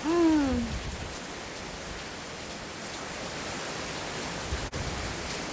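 Steady rain falling, an even hiss throughout, with a short falling voice-like sound right at the start and a brief dropout in the sound near the end.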